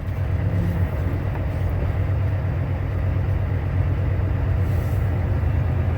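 Semi-truck's Cummins ISX diesel engine running as the truck moves slowly, a steady low rumble.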